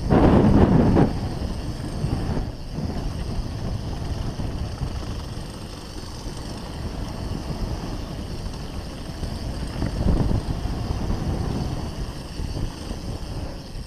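Wind rushing over the camera microphone and the rumble of a Norco One25 hardtail dirt jumper's tyres on a packed-dirt trail at speed, surging louder in the first second and again about ten seconds in.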